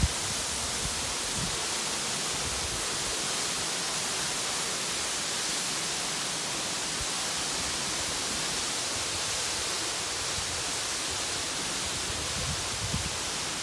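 Lower Calf Creek Falls, a tall waterfall, pouring steadily down a cliff into its plunge pool: an even, unbroken hiss of falling water.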